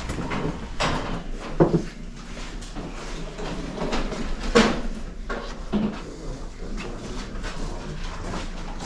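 Occasional knocks and light clatter of items being handled and set down, the two loudest about a second and a half in and about four and a half seconds in.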